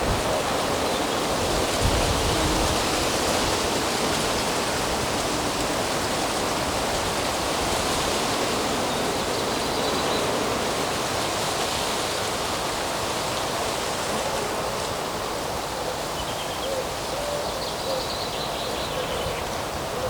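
Steady rushing of wind through the woodland trees, with a few faint bird calls.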